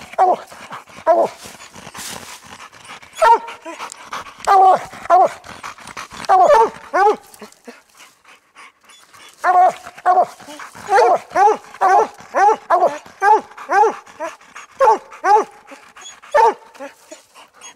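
Two coonhounds barking treed at the base of a den tree, a fast run of loud barks that each drop in pitch, with a short lull about halfway through. This tree barking is the hounds' signal that they have a raccoon treed in a den.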